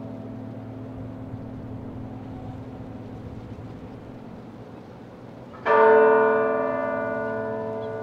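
Large tower bell tolling slowly in memorial. The ring of the previous stroke fades away, then a single new stroke is struck near the end and rings out loud with many overtones, decaying slowly under a lingering low hum.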